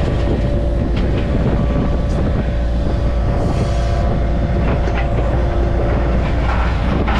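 Yanmar mini excavator's diesel engine running steadily, heard close from the operator's seat, with a few sharp clanks of scrap steel as the bucket and thumb push burned metal roofing down into a trailer.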